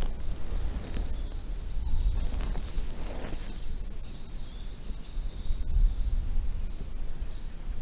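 Wind buffeting the microphone in an uneven low rumble, with faint high bird chirps.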